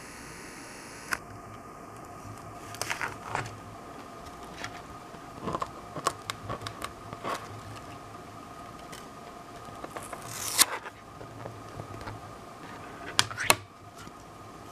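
Clicks, taps and scrapes of a freshly finished 3D print being worked loose from an Ender 3 Pro's print bed, loudest about ten seconds in and again near the end, over a steady hum from the printer.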